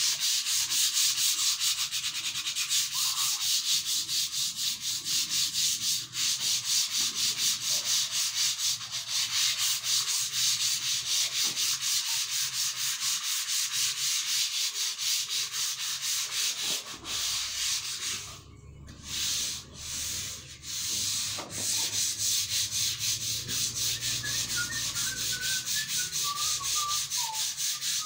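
Hand sanding a long bullnosed block with sandpaper: quick, even back-and-forth rubbing strokes, broken by a few short pauses about two-thirds of the way through.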